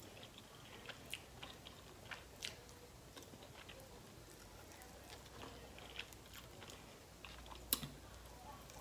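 Faint chewing and small wet mouth clicks of someone eating a buffalo chicken wing, with a sharper click a little before the end.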